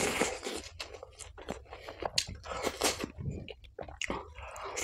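A man chewing and biting mouthfuls of bhatura (fried bread) with chole, with many quick, irregular mouth clicks.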